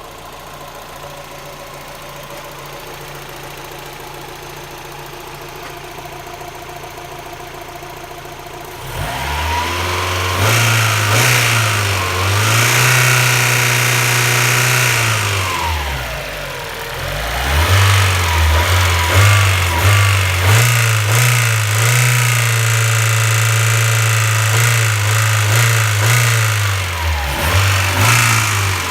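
Mazda MX-5 B6 1.6-litre four-cylinder engine with a ticking noise, idling steadily at first. From about nine seconds in it is revved up and down several times, held high for a few seconds, drops back, then is revved again.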